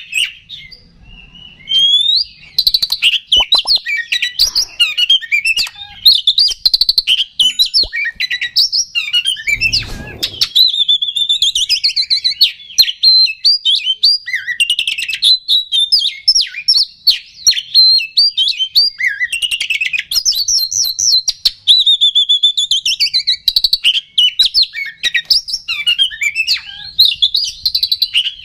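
Oriental magpie-robin singing continuously, a rapid, varied run of whistles, trills and harsh notes: the full song that bird keepers call gacor. There is a brief lull just after the start and a short low thump about ten seconds in.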